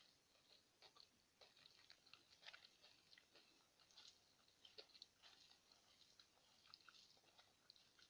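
Faint, wet eating sounds of rice and curry: fingers squishing and mixing the rice on the plate, with chewing. Irregular soft clicks and smacks, several a second.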